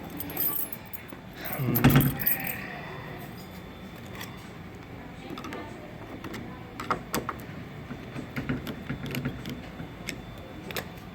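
Small metal parts and tools clicking and clinking while a deadbolt lock is worked on by hand, with one louder knock about two seconds in.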